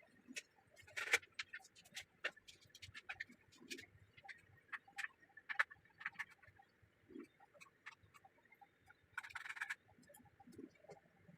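Irregular small clicks and taps of hands and tools working on a DLP projector's parts, with a brief scraping rustle about nine seconds in.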